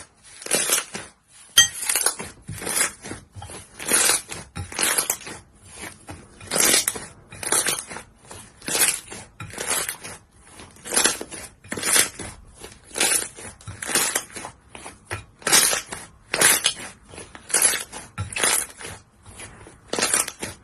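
Slime being squeezed and pressed by hand, giving short crackling, popping bursts about two times a second.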